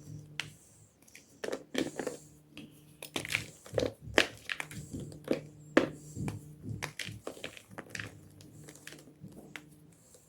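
Gym chalk crunching and crumbling close up: a run of irregular, sharp crackles that come in clusters, over a faint steady low hum.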